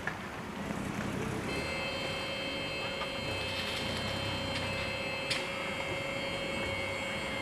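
Level crossing's warning bells start ringing about a second and a half in, a steady high-pitched ringing over low background rumble, with one sharp click later on.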